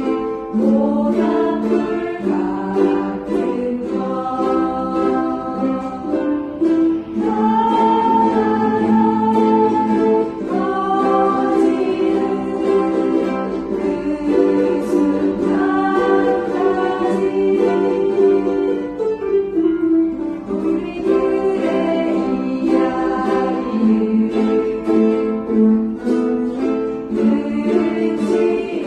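A ukulele is strummed as accompaniment to a sung melody, in steady, unbroken phrases.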